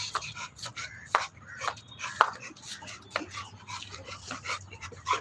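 An American bully dog making irregular sharp clicks and crunches.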